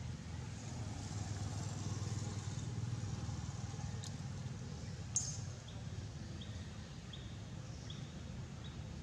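Outdoor background with a steady low rumble, like distant engine traffic. A sharp click comes about five seconds in, followed by a run of short high chirps, about one every half second to the end.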